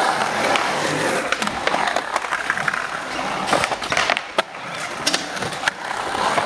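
Skateboard wheels rolling on the concrete of a skate bowl, a continuous noisy rumble, broken by several sharp clacks from the board.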